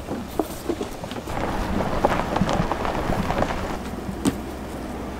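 Blue lay-flat irrigation hose being pulled and dragged across dry, weedy ground: a dense crackling rustle that builds about a second in and eases off after about four seconds, with one sharper knock near the end.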